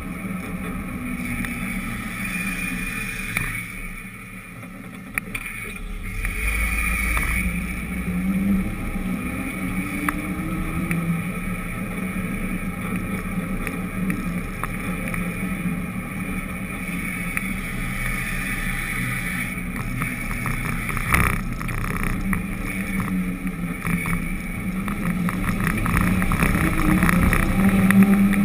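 A vehicle carrying the camera running along a street: steady engine and road rumble with wind noise, the engine pitch rising and falling, a brief dip a few seconds in, and a run of small clicks and knocks about two-thirds of the way through.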